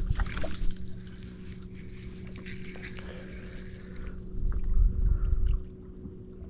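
A high, steady insect trill that stops about five seconds in, over low wind rumble on the microphone.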